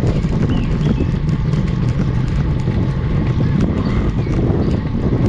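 Steady wind rumble on a bike-mounted GoPro microphone while a road bicycle climbs, with road and tyre noise and a run of small ticks from the bike.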